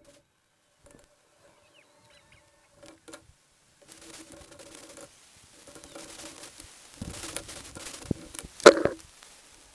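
A thin steak frying in a stainless steel skillet while a spatula pushes and scrapes it around the pan. A few faint clicks at first, then sizzling from about four seconds in. The scraping gets busier near the end, with one sharp, loud scrape of the spatula against the pan.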